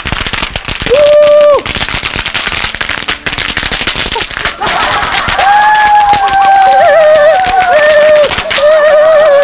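Pop-pop snap crackers (bang snaps) crackling in a rapid, scattered string of sharp pops as feet stamp and shuffle over them on concrete. Long held voice-like notes rise over the snapping briefly about a second in, then again from about halfway to the end.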